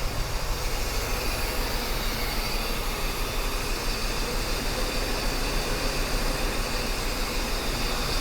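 Mercedes-Benz 560SEL's 5.6-litre V8 idling with a steady hum, running a little rough even after new spark plugs and wires.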